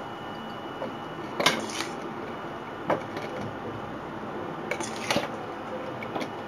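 A metal spoon knocking and scraping against the pot and pan about five times as boiled rice is tipped into milk-and-sugar syrup, over a steady hiss of the syrup boiling.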